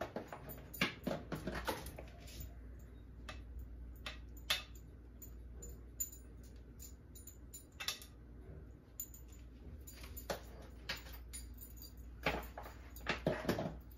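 Scattered light clinks and taps of a utensil against dishware while cake is cut and pieces go into a glass punch bowl, coming in small clusters, busiest near the start and again near the end.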